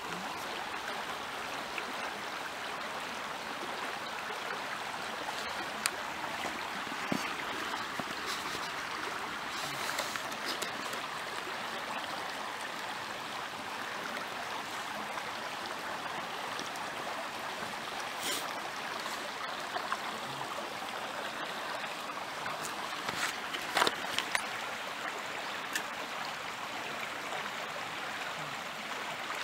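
Small creek flowing steadily, with a few short clicks scattered through it.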